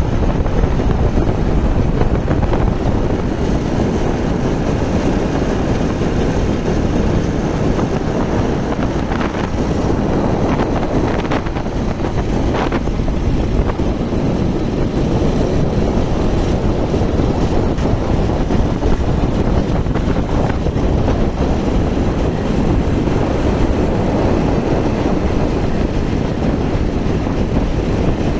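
Steady wind buffeting the microphone on a moving bike, over a continuous rumble of road and vehicle noise.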